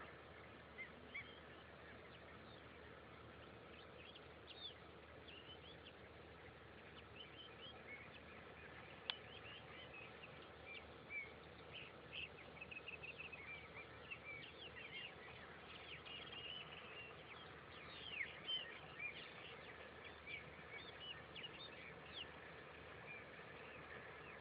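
Birds calling, with many short high chirps and calls coming thick and fast, most of all in the middle and later part, over a steady faint hiss. A single sharp click about nine seconds in.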